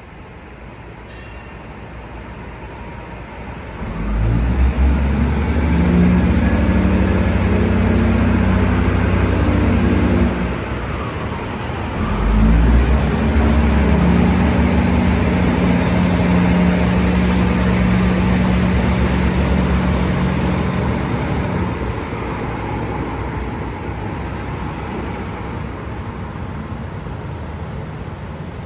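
Daewoo diesel railcar train's engines running hard as it accelerates away. The engine note builds about four seconds in, eases briefly, picks up again, then fades as the train draws away.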